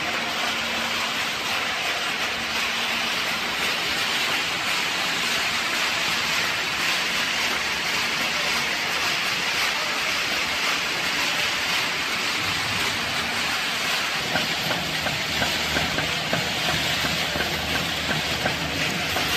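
Pet food extrusion line running: a steady, loud mechanical hiss and clatter of factory machinery. A low hum and light rattling come in during the second half.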